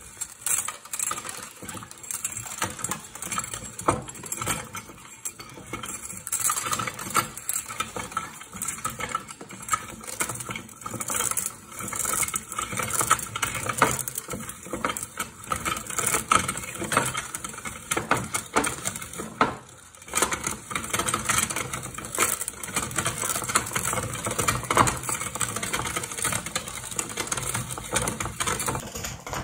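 Hand-cranked metal meat grinder turning while dry spaghetti is fed into it: a dense, continuous crackling and snapping as the auger crushes the hard pasta, with metallic clinking and rattling from the grinder. The grinding stops briefly about two-thirds of the way through, then resumes.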